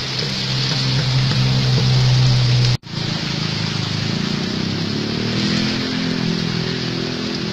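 An engine running steadily with a low hum, broken by a sudden brief cut about three seconds in, then running on with its pitch shifting slightly.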